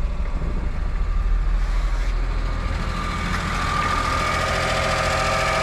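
Daihatsu Hijet kei truck's small three-cylinder engine idling steadily, with a steady high whine coming in about halfway through.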